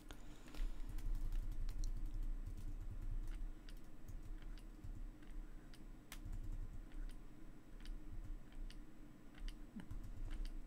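Irregular light clicks and taps from computer input devices, mouse or keyboard, as a brush is worked in an image editor, over a low rumble that comes and goes.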